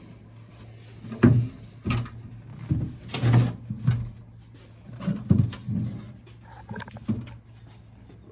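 Irregular clunks and knocks from a gas golf cart as it is driven off on a test run, over a steady low hum.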